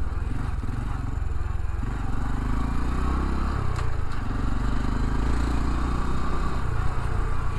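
Honda Trail 125 (CT125) motorcycle's air-cooled single-cylinder engine running steadily while the bike is ridden at low speed, its note shifting about three and a half seconds in.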